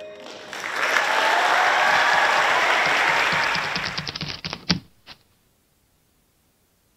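Theatre audience applauding, dense clapping that thins to a few separate claps about four and a half seconds in and then stops, leaving near silence.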